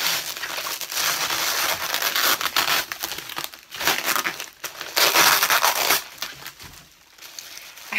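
Sticky bubble wrap being peeled apart and crumpled: a dense crackling, crinkling plastic sound that eases off about six seconds in.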